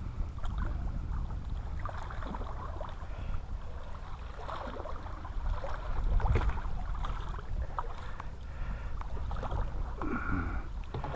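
A hooked catfish thrashing and splashing at the water's surface, loudest about six seconds in, over a steady low wind rumble on the microphone.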